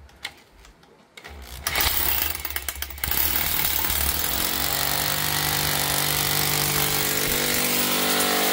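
A motor-driven machine starts up about a second in and then runs steadily, its noise settling into a steady hum a few seconds later.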